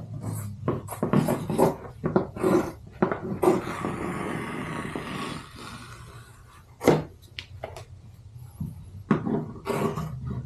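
Scissors snipping through a sheet of vinyl upholstery material in short, irregular cuts, with the vinyl rustling and sliding on the table as it is handled. A single sharp tap, the loudest sound, comes about seven seconds in.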